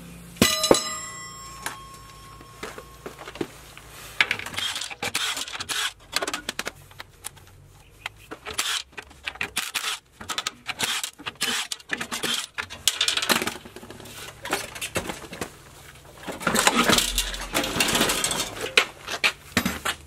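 Metal clanking and clinking as the double-wall copper coil heat exchangers and tank parts of an indirect water heater are handled. One clang about half a second in rings on for a couple of seconds, and a denser run of clattering comes near the end.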